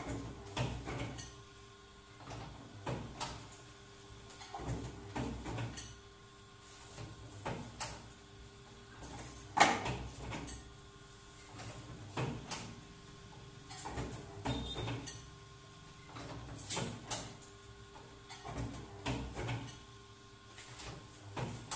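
Double-die paper plate machine running: a steady hum under repeated clunks and clacks of the dies and the paper being fed, coming in little clusters about every two seconds, with one much louder knock about ten seconds in.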